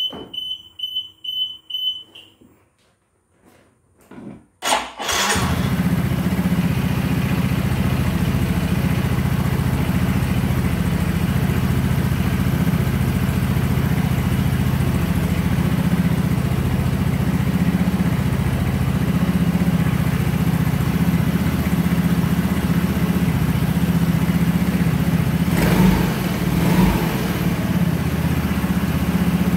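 A quick string of short high beeps, then about five seconds in an automatic scooter's engine is electric-started and settles into a steady idle, its CVT belt drive spinning with the cover off on a newly fitted 13.8° drive pulley. Near the end there is a brief louder burst in the engine sound.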